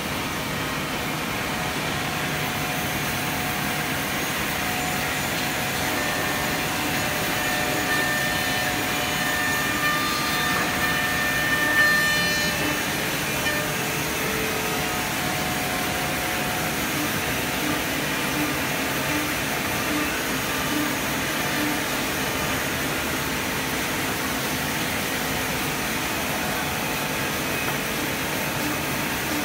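High-speed ten-head CNC mortising machine running, its spindles cutting mortises in wooden frame parts: a steady machine and cutting noise with a higher whine that builds to a brief louder cut about twelve seconds in.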